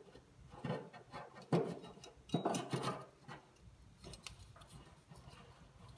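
A few sharp clicks and light metal knocks as a stainless steel grill burner tube is handled and its igniter clipped on, strongest in the first three seconds, then only faint small ticks.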